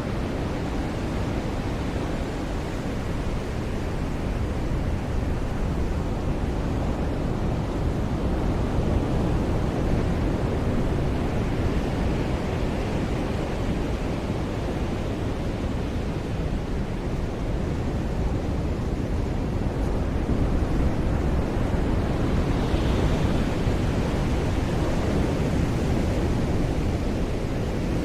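Ocean surf: waves breaking and washing onto a beach in a steady rush that swells and eases slowly.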